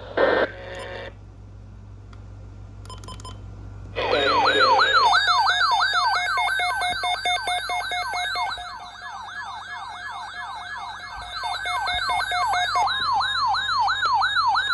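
Electronic alert siren warbling up and down about three times a second, with higher overlapping tones, starting about four seconds in. It is the alarm a weather alert radio sounds when a watch is issued.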